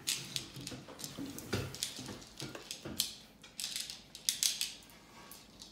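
M&M candies clicking and rattling against a ceramic plate as they are picked out by hand: a scatter of irregular light clicks.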